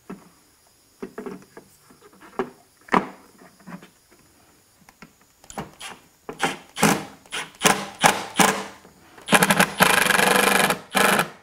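Small red cordless driver on its lowest setting running a screw into a plastic headlight housing: several short spurts from about six seconds in, then a longer fast, even rattling run near the end. Before that, light clicks and handling noises of the parts and wiring.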